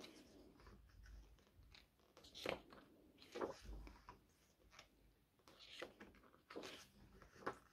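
Faint rustling and swishing of thick photobook pages being turned and handled, in several short soft bursts, the most noticeable a few seconds in.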